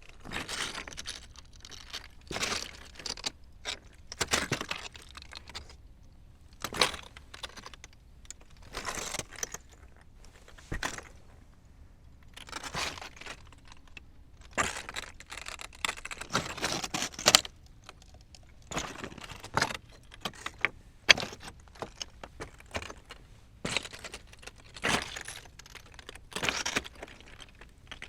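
Footsteps on loose stones: uneven crunching and clattering steps, about one a second.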